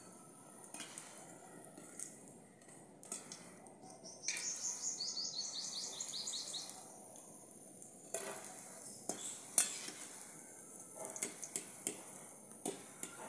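A metal slotted spoon clinks and taps against a karahi as fried onion pakoras are lifted out of the oil onto a plate, in scattered short clicks. About four seconds in, a bird trills rapidly for a couple of seconds.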